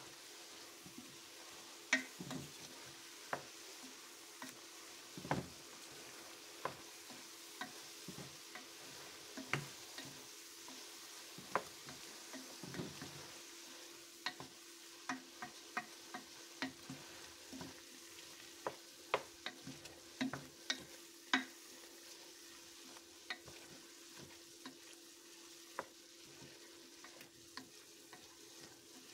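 Cubed chicken breast sautéing in a stainless steel pot, with a soft steady sizzle, while a spoon stirs it and knocks against the pot in irregular clicks.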